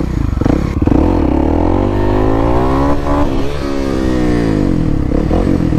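Kawasaki KLX300SM's single-cylinder four-stroke engine revving hard for a wheelie: its pitch climbs for about two seconds, then falls away as the throttle is rolled off and the front end comes down.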